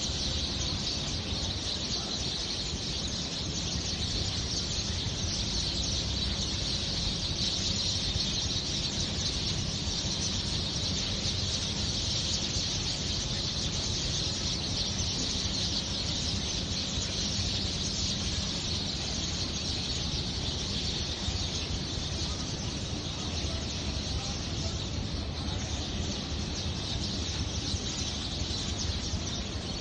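A large flock of sparrows chirping all at once, a dense, unbroken chatter, over a steady low rumble.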